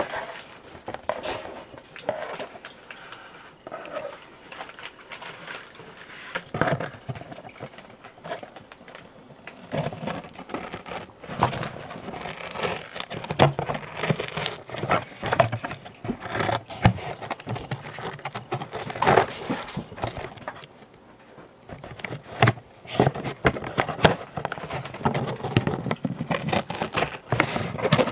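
A cardboard Funko Pop box and its clear plastic window packaging being opened and handled by hand: irregular scraping, rustling and tapping. The handling grows busier partway through, with a short lull about two-thirds of the way in.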